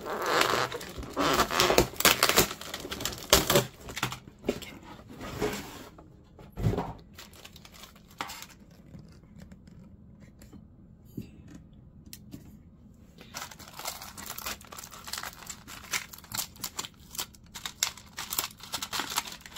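Clear plastic packaging and tissue paper around a miniature toy handbag being slit, torn open and crinkled by hand, in bursts of rustling with a quieter stretch midway.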